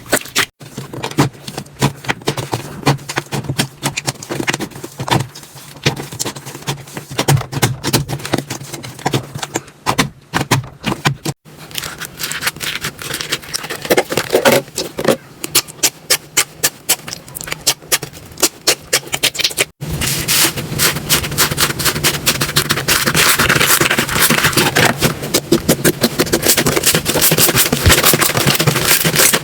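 Slime being worked by hand, making dense runs of sticky clicks, pops and crackles. The sound cuts abruptly about 11 and 20 seconds in, and after the second cut the crackling is denser and more continuous.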